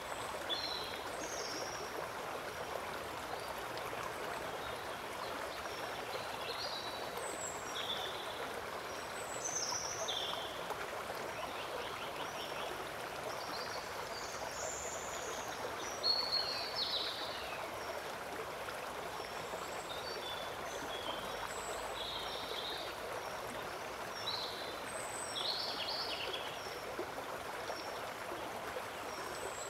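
Steady rush of running water, with short, high bird chirps, some sliding downward, scattered throughout. There is a brief louder sound about halfway through.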